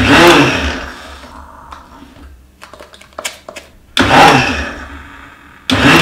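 Electric mixer grinder (mixie) pulsed in short bursts of about a second to grind crunchy cashews into dry powder: three bursts, at the start, about four seconds in and near the end, each spinning up and winding down. A few light clicks and rattles in between.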